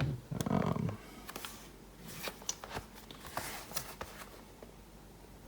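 A packaging box being handled: scattered light taps, clicks and rustles that stop about four seconds in, after a brief murmur from the voice at the start.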